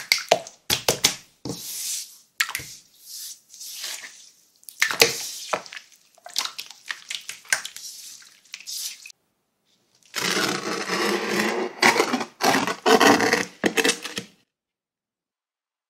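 Glitter slime being squeezed and kneaded by hand: irregular wet squelches and sticky pops. After a short pause about nine seconds in, a denser run of squelching follows, then stops shortly before the end.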